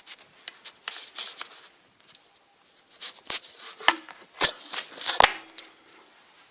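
Playing cards being handled: quick rustling and riffling with several sharp taps, the loudest a little past the middle.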